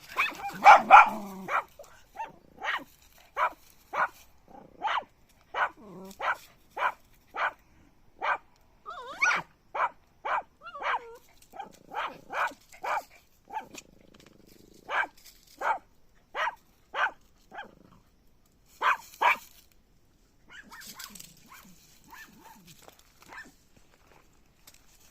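A puppy barking in a long run of short, sharp barks, about two a second, with a brief pause midway and only faint sounds near the end.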